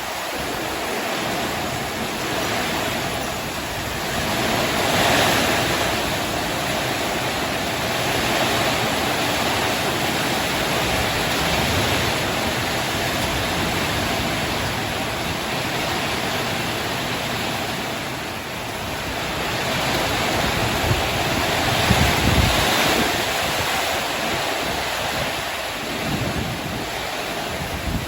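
Heavy rain pouring down in a summer windstorm, with gusts of wind buffeting the microphone. The noise swells twice, about five seconds in and again past the twenty-second mark.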